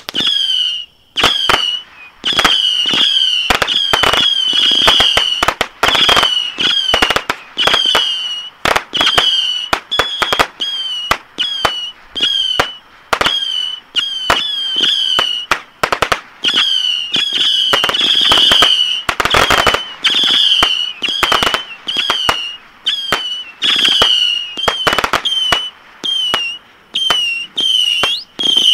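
A 300-shot Saturn missile battery firing continuously. Each missile gives a short high whistle and a sharp pop, one or two a second, packed into a dense volley a little past the middle.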